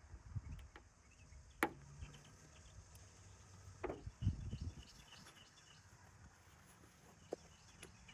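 A few sharp clicks and a short low knocking from hand tools being handled during glue-pull dent repair, with faint insects chirping in the background.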